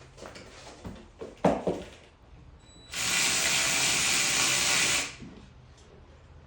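A handheld power tool runs steadily for about two seconds, driving or drilling hardware into the skid plate, after a few metal knocks about a second in.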